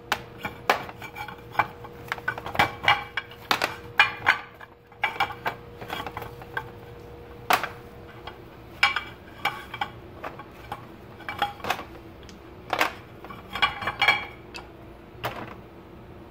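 A rudder bearing being taken apart by hand: its loose white rollers and aluminium housing and race clatter against each other and a metal tray in a string of irregular clinks and knocks, some in quick clusters.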